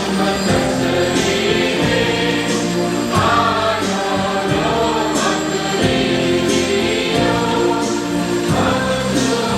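A choir singing a hymn with instrumental accompaniment. Notes are held for long stretches over a light beat that falls about once a second.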